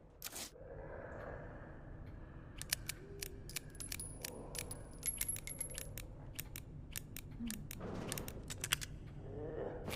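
Metallic clicks of a revolver being handled before the draw: a series of sharp, irregular clicks with a faint high metallic ring partway through, and some soft rustling.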